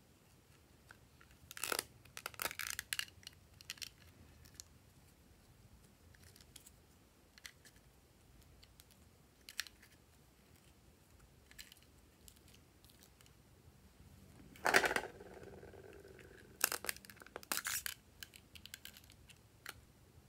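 Clicks and clatters of a small gold compact-style case being handled and opened, its loose flower decorations rattling: a cluster of clicks about two seconds in, a few scattered single clicks, a sharper knock about fifteen seconds in that is the loudest sound, then another run of clicks.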